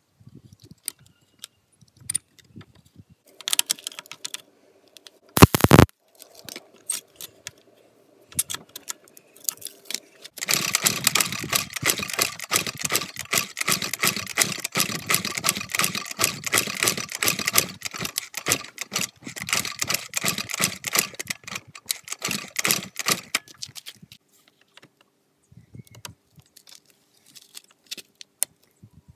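A loud knock about five seconds in, then a dense run of rapid clicking and rattling lasting about fourteen seconds, over a faint steady hum.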